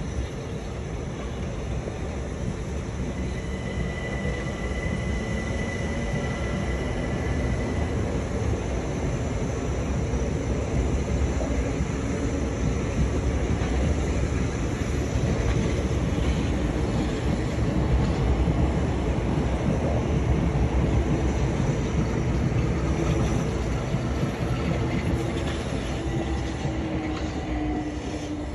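Electric multiple-unit passenger train running past on the track below: a steady rumble of wheels on rail that builds to its loudest past the middle and eases off near the end, with a thin high wheel squeal in the first few seconds.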